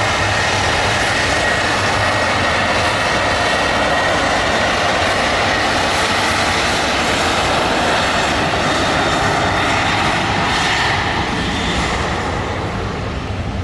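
Boeing 737 jet engines running loud and steady, a high whine over the roar, fading somewhat near the end.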